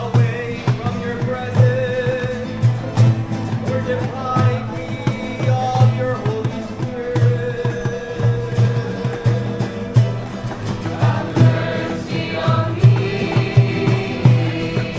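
Music with voices singing together, choir-like, over a regular low beat.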